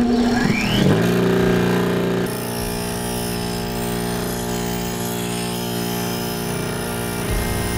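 Delta bench grinder with a coarse Norton grinding wheel, switched on and coming up to speed with a brief rising whine, then running free with a steady hum before any metal touches the stone.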